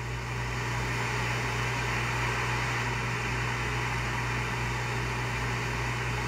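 Steady low hum under an even hiss, with no distinct events: constant background noise of the kind a fan or air conditioner makes.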